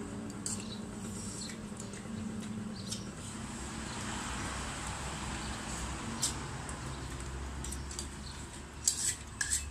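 People eating from bowls with metal spoons: scattered light clicks and scrapes of spoons on the bowls, with a few sharper spoon-on-bowl clinks near the end.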